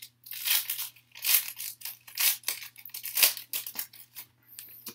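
Foil trading-card pack wrapper being torn open and crinkled by hand, a run of irregular crackling rustles.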